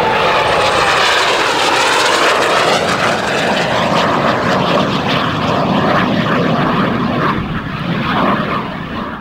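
Soko Galeb jet trainer's Rolls-Royce Viper turbojet, loud throughout as the aircraft flies past. A high whine falls in pitch during the first second.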